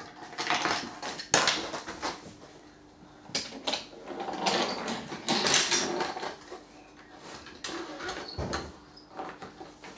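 Wooden toy railway being played with: train carriages clacking and rolling along wooden track, with irregular knocks as pieces are handled, busiest a few seconds in.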